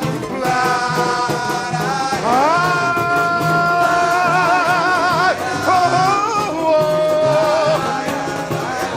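Samba-enredo sung live by the samba school's singers and chorus: long held notes with vibrato, sliding up into a sustained note about two seconds in. The bateria keeps a steady drum beat underneath.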